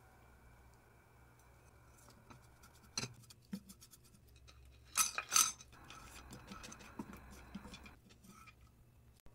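Wooden spatula stirring and scraping dry ingredients (grated coconut, then peanuts) around a nonstick frying pan, with scattered clicks, a few sharp clicks about halfway and a stretch of scraping near the end. A faint steady hum runs underneath.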